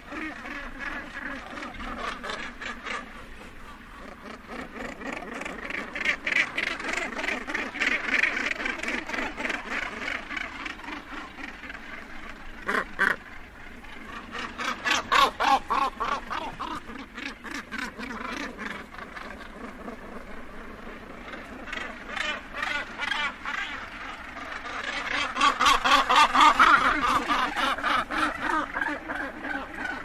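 Northern gannets at the edge of a colony giving harsh, rapidly pulsed cackling calls. Several birds overlap in waves that swell and fade, with the loudest bout near the end.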